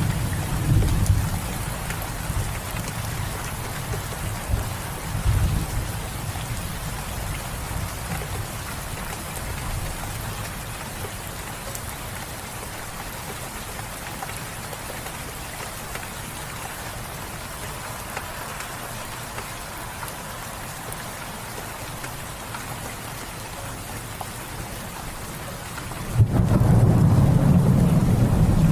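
Steady rain falling, with a low rumble of thunder that fades away over the first several seconds and a loud rumble that sets in suddenly near the end.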